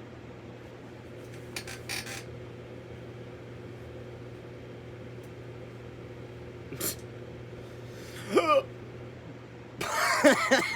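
A person hiccuping: a short voiced hiccup falling in pitch about eight seconds in, then a louder, longer voiced one near the end.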